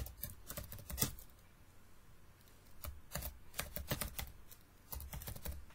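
Computer keyboard being typed on: irregular bursts of key clicks, a cluster near the start and around a second in, a pause, then more runs of keystrokes from about three seconds on.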